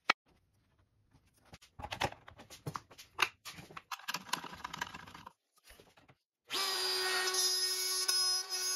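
Clicks and knocks as a DeWalt compact plunge router with a guide bushing is set onto a template on plywood. About six and a half seconds in, the router's motor starts suddenly and runs with a steady high whine as it is guided along the template, cutting the plywood.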